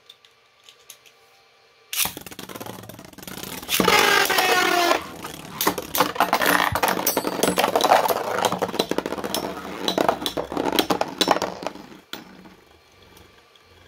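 Two 3D-printed Beyblade spinning tops are launched into a plastic stadium about two seconds in. They give a brief high whine, then clatter and crack against each other and the stadium walls in rapid clicks and hits for about ten seconds before falling quiet.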